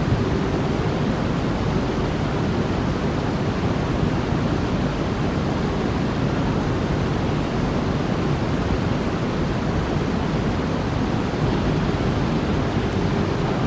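Steady hiss with a low rumble, even and unchanging, with no speech: the background noise of the sermon recording.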